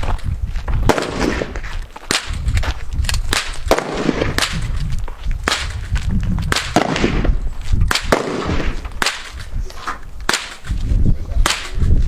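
Gunfire from several shooters on an outdoor range: sharp rifle and handgun shots at irregular intervals, sometimes several a second, some overlapping or echoing, over a low rumble.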